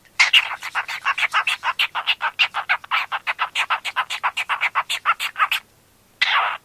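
Pet cockatiel chirping in a fast, even run of short chirps, about eight a second, for around five seconds. After a short pause it gives one longer, harsher call near the end.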